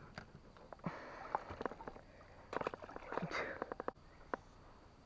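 Irregular sharp clicks and light knocks, with a quick cluster of them about two and a half seconds in.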